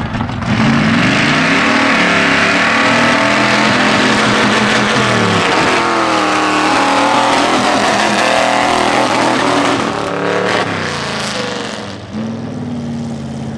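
Lifted Chevrolet pickup's engine revving hard under load as the truck drags a tractor tire. The pitch climbs, drops sharply about five seconds in, climbs again, drops near ten seconds and eases off near the end.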